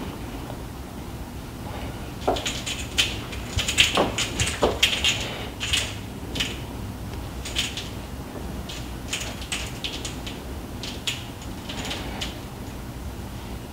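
A cat playing with a fabric toy on a cord on a tile floor: irregular scratches, scrapes and light taps of claws and the toy against the tiles, busiest a few seconds in, with a few sharper knocks, over a steady low hum.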